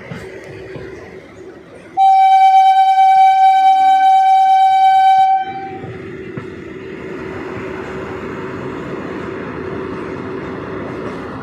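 A train horn sounds one long, loud, steady blast of about three and a half seconds, starting about two seconds in. A moving train rumbles steadily before and after it.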